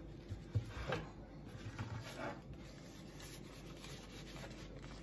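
Light handling noise while plating fried banana fritters: faint rubbing with a few soft knocks in the first couple of seconds, then only faint rubbing.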